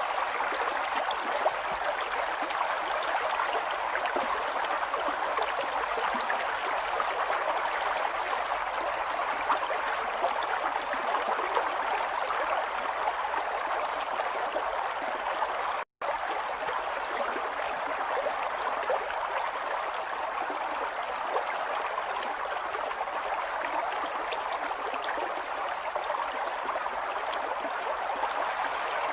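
Running water flowing steadily, with a brief cut to silence for a split second about halfway through.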